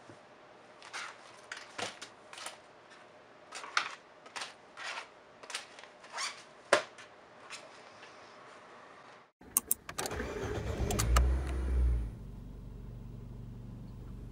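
Light clicks and rustling as pens and a notebook are handled and the notebook is slid into a fabric pouch. About nine seconds in, a quick clink of keys, then a car engine starts, runs up loudly for a couple of seconds and settles into a steady idle, heard from inside the car.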